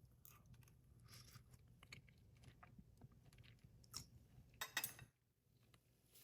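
A person chewing a mouthful of food: faint, wet mouth clicks and crackles, with a few sharper clicks a little after four seconds in. The sound then drops away almost completely about five seconds in.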